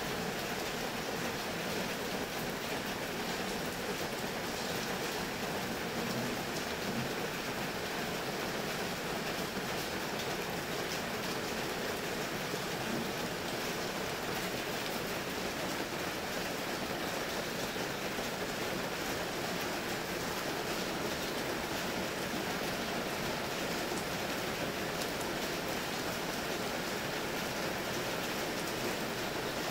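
Steady rain falling, an even hiss of drops that holds at the same level throughout.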